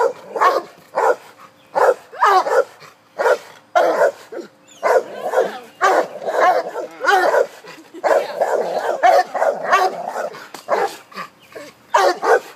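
Two agitated dogs barking over and over in short, irregular barks, the barks running together for several seconds midway.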